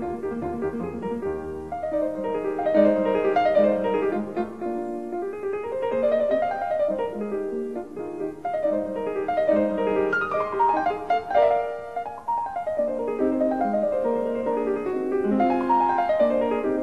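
Piano music: flowing runs of notes that sweep up and down the keyboard again and again.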